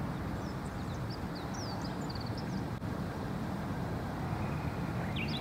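Steady low wind rumble on the microphone, with small birds chirping in short, high, falling notes through the first half and again near the end.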